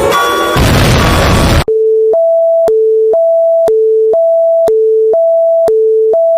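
An electronic emergency-alert attention signal. A chord of steady tones gives way about half a second in to roughly a second of harsh static. Then a loud two-tone alarm alternates between a low and a higher pitch, switching about every half second.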